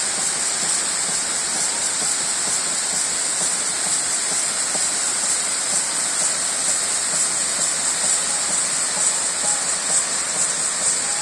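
Waterfall rushing: a steady, dense hiss of falling water with no breaks.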